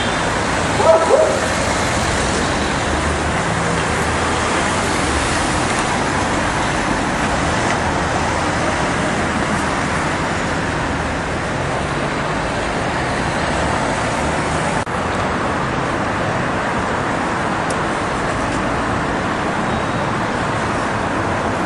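Steady noise of road traffic, cars passing on a city street, with a short louder sound about a second in.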